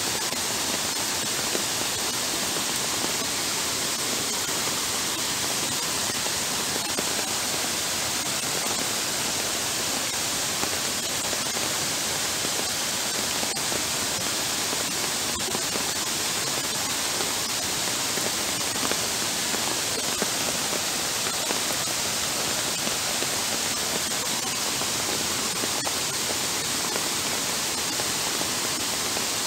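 Heavy downpour falling onto shallow floodwater running over a paved footpath: a constant, unbroken hiss of rain and splashing water.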